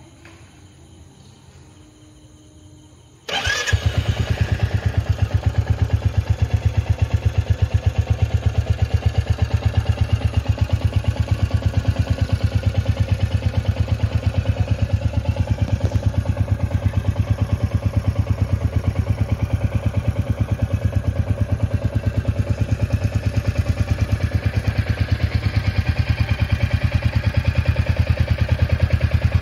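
Royal Enfield Classic 350's single-cylinder engine, with its stock silencer, starts about three seconds in and settles straight into a steady idle. The idle is an even train of exhaust pulses, the bike's signature 'dook dook dook' beat, a little louder near the end.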